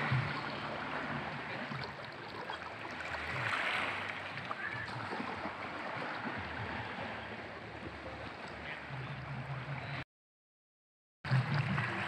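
Small waves of a calm sea lapping and washing against shoreline rocks, a steady wash of water. The sound cuts out completely for about a second near the end.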